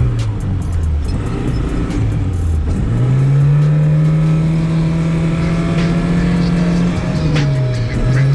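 Classic Zhiguli's four-cylinder engine revving hard while drifting on snow. The revs sit lower for the first few seconds, climb sharply about three seconds in and are held high and steady, then drop briefly near the end before rising again.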